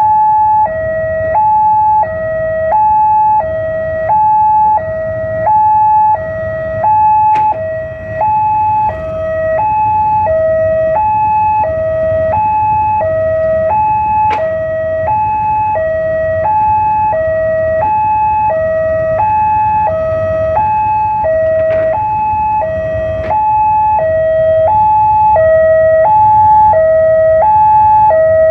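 Electronic railway level-crossing alarm sounding a two-tone hi-lo warning, switching between a lower and a higher pitch about twice a second, which signals that a train is approaching and the crossing is closed. Beneath it runs a low rumble of waiting road traffic, with a few sharp clicks.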